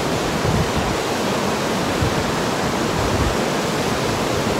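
Waterfall rushing: a steady, even hiss of falling water, with a few brief low rumbles underneath.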